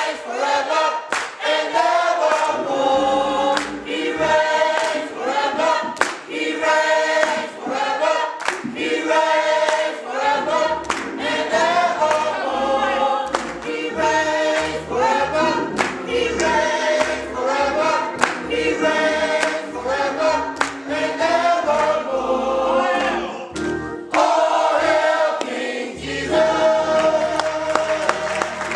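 Youth and young adult gospel choir singing together, with hands clapping on the beat. Low bass notes join in about three seconds in.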